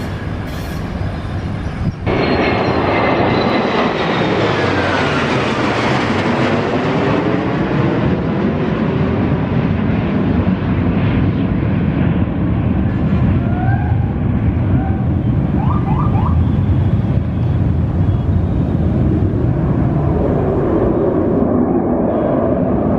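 Military aircraft flying low overhead: a loud, steady rush of engine noise, with a whine falling in pitch as one passes, starting about two seconds in.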